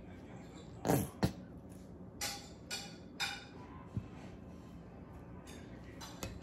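A plastic ketchup bottle and measuring cup being handled: two sharp knocks about a second in, then a few short sputtering squirts as ketchup is squeezed from the bottle, and a light tap.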